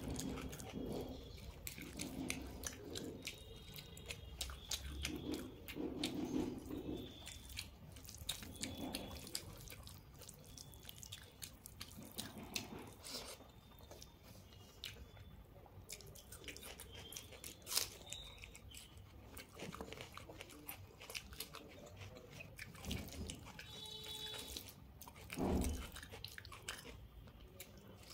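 Close-up eating sounds: rice and dal squished and mixed by hand, then chewed, with many small wet clicks and lip smacks coming irregularly. There is one sharp click about two-thirds of the way through and a low thump near the end.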